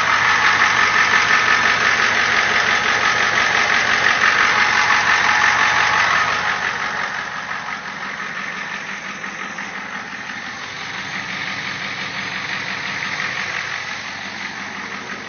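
7.3-litre International IDI V8 diesel idling through a 6-inch straight pipe, a steady diesel clatter. It is louder for the first six seconds or so, then quieter for the rest.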